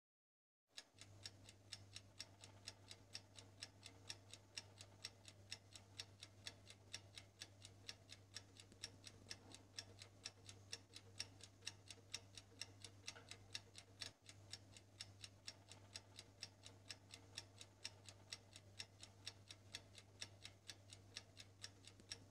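Faint, even ticking of a clock sound effect, a few ticks each second, counting down a timer.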